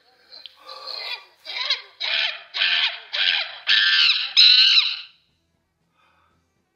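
A man crying out in a run of short, pitched cries, about two a second, growing louder and stopping about five seconds in: straining hard after a dose of laxative.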